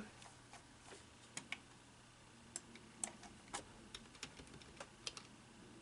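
Faint, irregular clicks of computer keyboard keys being pressed, about a dozen spread unevenly.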